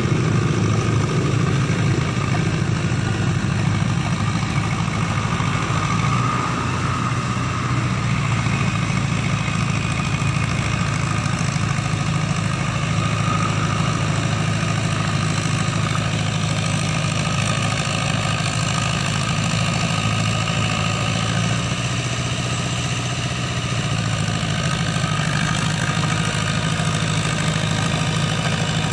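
Ford tractor's engine running steadily as it pulls a rotary tiller through a flooded rice paddy, easing off slightly twice.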